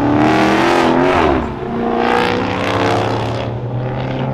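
Car engine revving hard as it accelerates away, its pitch climbing, falling off about a second and a half in, then climbing again more softly.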